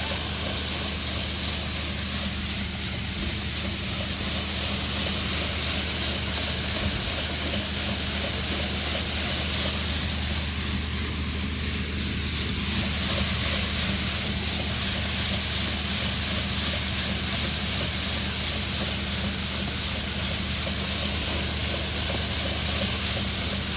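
Harvest machinery engine running steadily under a loud, constant hiss, with a droning low hum.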